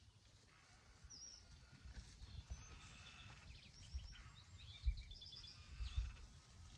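Birds chirping in short, high repeated notes, with a few dull low thumps. The thumps are the loudest sounds.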